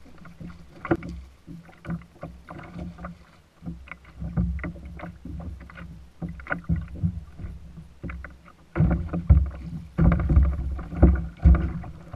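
Hooked bluefish splashing at the surface beside a plastic kayak, with a string of irregular knocks and clicks of gear being handled. Near the end, a run of loud thumps as the fish and the umbrella rig are lifted in against the hull.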